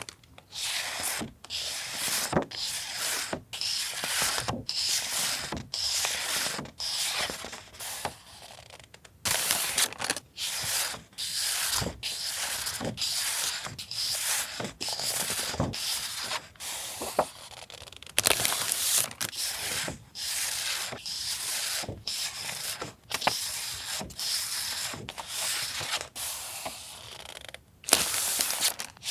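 Sheets of paper and stickers being handled, with a long series of short dry rustling and rubbing strokes separated by brief pauses.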